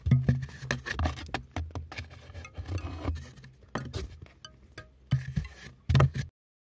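Cat pawing and scratching at a cardboard box from inside, a busy run of scrapes, taps and low thumps on the cardboard. The sound cuts off abruptly about six seconds in.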